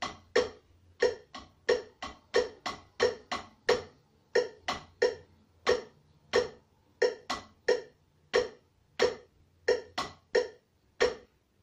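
Drumsticks striking a practice pad, playing a notated rhythm exercise at about 90 beats a minute: single strokes mixed with quick runs, some strokes louder than others.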